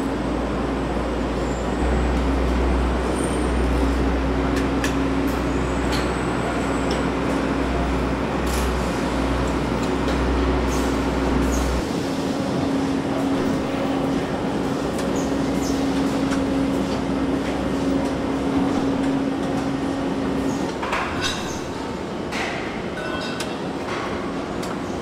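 Steady industrial-sounding noise: a rush of air with a low hum and a deep rumble. The rumble drops out about halfway through, and the hum stops a few seconds before the end, among a few clicks.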